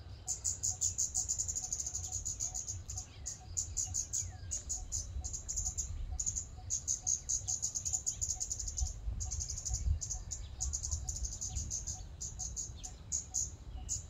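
Scarlet-backed flowerpecker calling: fast runs of thin, high-pitched ticks, about ten a second, broken by short pauses. A low rumble runs underneath.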